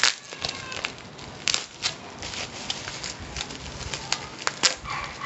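Plastic bubble wrap around a cardboard box crinkling and crackling as it is pulled at and slit with a knife, in irregular sharp crackles.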